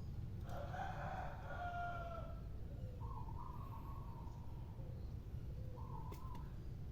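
A bird calling: one long call of about two seconds, then two shorter calls, over a steady low rumble.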